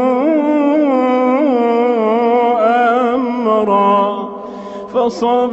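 Male reciter chanting the Quran in melodic tajweed style, holding long drawn-out vowels with ornamented pitch turns. There is a short break about four seconds in, and the next word comes in at about five seconds.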